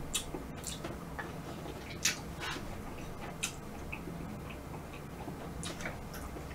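Close-up eating sounds while eating soft ice cream from a wooden spoon: a scatter of short, sharp mouth clicks and smacks at uneven intervals, the loudest about two seconds in.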